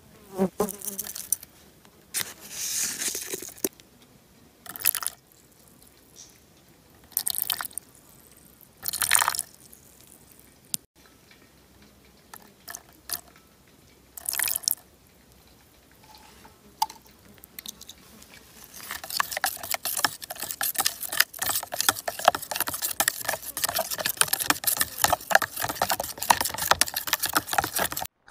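Several short splashes of liquid poured into a plastic tub, then, from about two-thirds of the way in, a plastic spoon stirring a thick sauce of sugar and soy sauce in the tub, a fast run of small clicks and scrapes.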